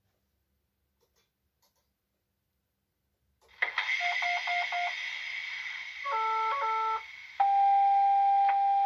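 Model Class 68 diesel locomotive's sound decoder running its cab start-up sequence: after about three seconds of silence a steady hiss comes on, then electronic beeps: four short beeps, a two-tone beep pattern, then a long steady warning tone near the end. These are the locomotive's TPWS and AWS safety systems self-testing.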